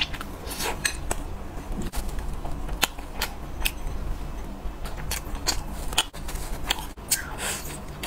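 Close-miked eating: biting into and chewing grilled skewered food, heard as sharp crisp crackles and mouth clicks at irregular intervals.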